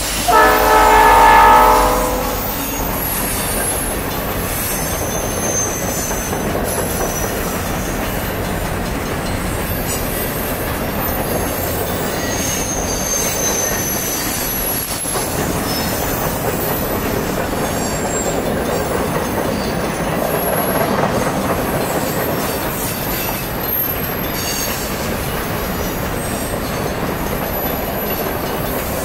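Passing freight train: the lead locomotive's horn sounds a chord that ends about two seconds in. Then the cars roll by at speed with a steady rumble and clatter of wheels on rail, and thin, high wheel squeals now and then.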